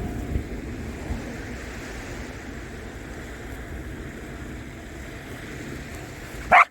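Steady wash of ocean surf with wind on the microphone. A corgi barks once, sharply, right at the very end.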